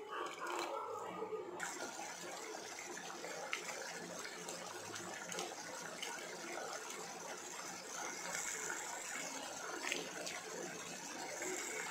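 Tamarind water poured from a steel cup into a pot of potato and chickpea curry, a short splashing pour. It is followed by a steady hiss with a few faint crackles as crisp pani puri shells are crushed by hand into the liquid.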